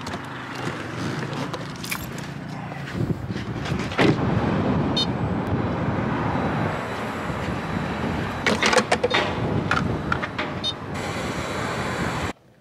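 Refuelling a pickup at a gas pump: clicks and clunks from the truck door, pump buttons and fuel nozzle over a steady low rumble, then a steady rush of fuel being pumped that cuts off abruptly.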